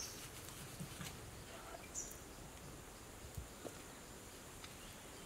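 Faint outdoor ambience, with a short high chirp about two seconds in and a few soft ticks.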